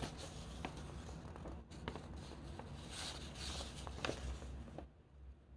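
Faint room noise with light rustling and a few soft clicks, cutting off to silence near the end.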